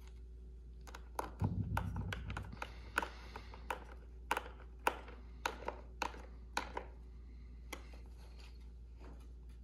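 Small Phillips screwdriver turning small screws into the plastic landing-gear cover of an RC jet model: an irregular string of sharp light clicks and ticks, with a brief low rumble about a second and a half in.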